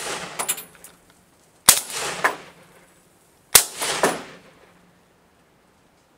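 Rifle shots at a wild boar: the tail of one shot as it begins, then two more sharp cracks about two seconds apart, a couple of seconds in and near the middle, each trailing off in about a second of rolling echo.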